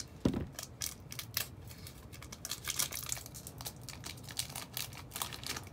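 Crinkling and tearing of a Pokémon booster pack's foil wrapper as it is opened, with the cards rustling, in a quick irregular run of crackles, plus a dull thump about a quarter second in.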